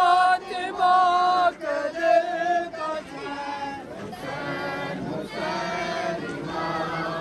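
Male voices singing a mourning chant (noha) with long held notes. It is loudest over the first two seconds, then goes on more quietly.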